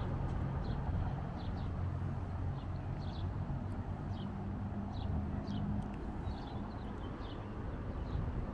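Small birds chirping, short high calls repeated irregularly, over a low steady rumble.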